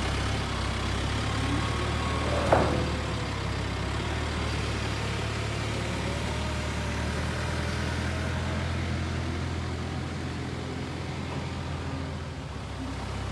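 Telehandler engine running steadily while it lifts steel beams off a flatbed trailer. About two and a half seconds in there is one sharp metal clank from the forks or the beams.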